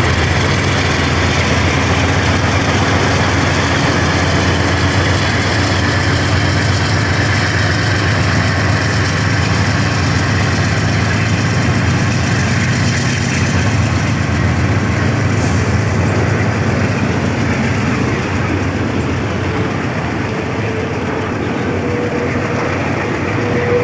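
Diesel locomotives of a Santa Fe freight train working upgrade, their engines running loud and steady as the trailing GE B40-8W passes close. The sound eases a little as the train of trailer-carrying flatcars rolls by, and near the end a thin wheel squeal starts.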